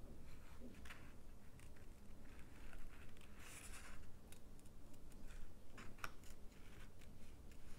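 Small scissors snipping around a stamped paper motif: a series of short, faint snips with paper rustling between them.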